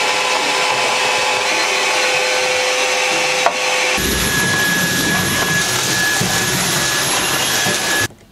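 Vacuum cleaners sucking up aluminium shavings from a boat's deck. First a hose vacuum runs with a steady hum. About four seconds in, a cordless stick vacuum takes over with a higher whine, and it cuts off near the end.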